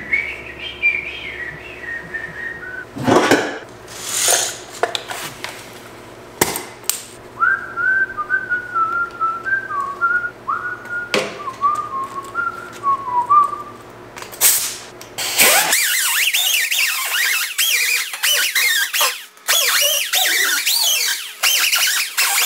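A man whistling a wandering tune, with a few knocks of handling in between, then about sixteen seconds in a MIG welder's arc strikes and crackles steadily as he welds a roll-cage tube, with one short break in the bead.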